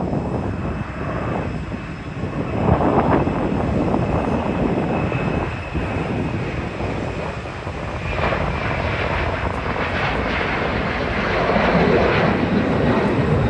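Boeing 737-900ER's two CFM56-7B turbofans at takeoff thrust during the takeoff roll and liftoff: a steady jet rumble with a thin high whine, growing louder near the end as the airliner rotates.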